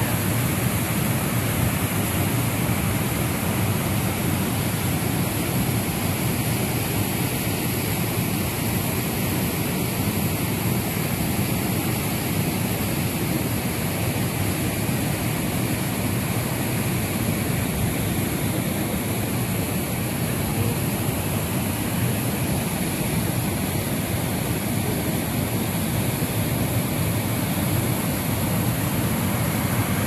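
Steady rush of the Ouzoud waterfalls, a constant roar of falling water with no breaks or changes.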